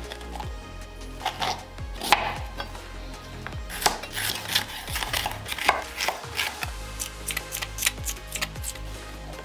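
Chef's knife slicing bell peppers on a wooden cutting board, the blade knocking the board in short irregular strokes. The strokes come faster and closer together in the second half.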